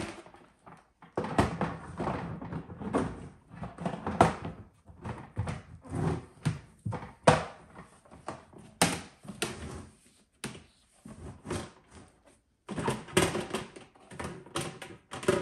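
Hard plastic parts of a portable bucket toilet knocking and clicking as the seat-and-lid unit is set onto the base and the hinged lid is lifted: a run of irregular short thuds and clatters.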